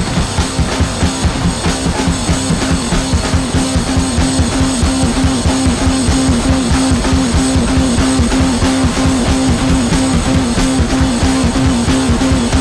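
Rock music with electric guitar and a driving drum beat.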